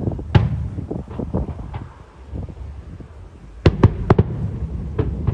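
Aerial firework shells bursting: a bang about half a second in, then a quick run of four sharp cracks about two-thirds of the way through and one more crack near the end, over a low rumble.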